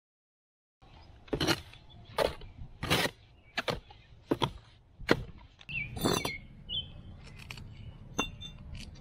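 Mortar hoe working wet mortar in a plastic wheelbarrow: six sharp, evenly spaced strokes, about one every 0.7 s. They are followed by lighter clicks and a short high chirp about six seconds in.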